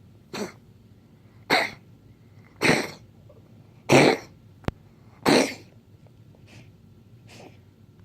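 A pet coughing in a series of five strong coughs, about one every second and a quarter, then two fainter ones near the end. There is a sharp click between the fourth and fifth cough.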